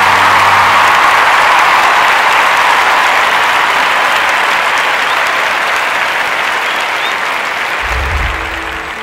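Crowd applause, loudest at the start and slowly fading. Music dies away in the first second, and a low rumble comes in near the end.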